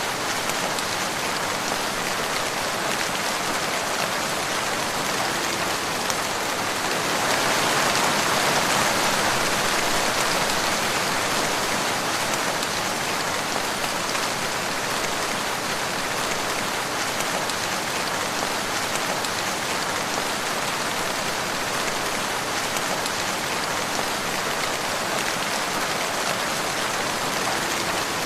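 Heavy rain falling steadily, a dense even hiss that swells a little louder for a few seconds about a quarter of the way in.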